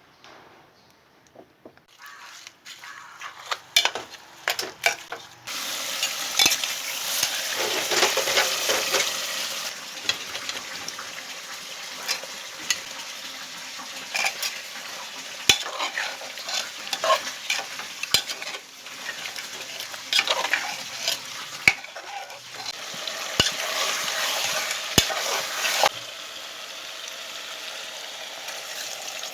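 Meat and potatoes frying and sizzling in a pan while a metal spoon stirs them, clacking and scraping against the pan. The sizzling starts a few seconds in, and the spoon's sharp knocks come again and again.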